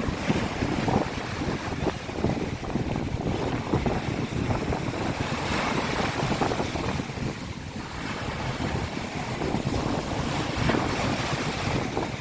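Sea waves washing onto a beach, with wind buffeting the microphone in a steady, gusting rumble.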